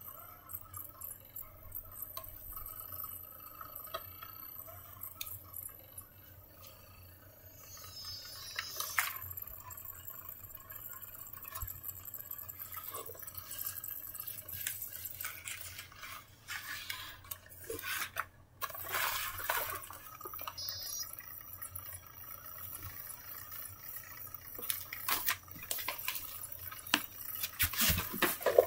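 Scattered light clicks, taps and rustles of hands handling a portable DVD player and plush toys, busiest in the second half.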